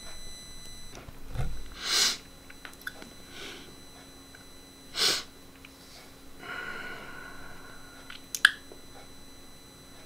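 Two loud breaths close to a Rode VideoMic Go on a camera, over a faint steady electrical buzz. This is the interference noise the mic picks up from Wi-Fi and router signals, which the owner blames on its unshielded cable. A high whine cuts off about a second in, a short held tone comes a little past the middle, and a sharp click comes near the end.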